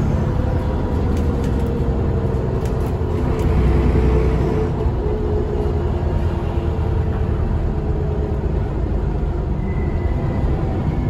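ALX400 double-decker bus running on the road, heard from inside: a steady engine drone with road rumble, and a few light rattles in the first few seconds.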